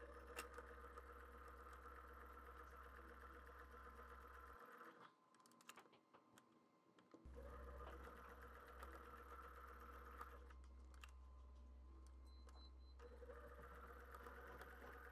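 Domestic sewing machine sewing a straight stitch: a faint, steady motor hum with the quick clatter of the needle mechanism. It stops and starts again twice.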